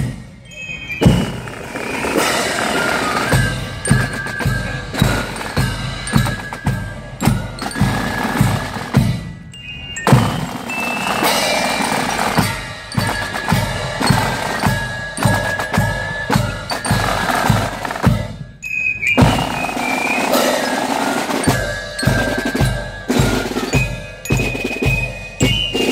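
Marching drum and fife corps playing a march: snare drums and bass drum beat a steady rhythm while fifes play a high melody above them, with two short dips in the music partway through.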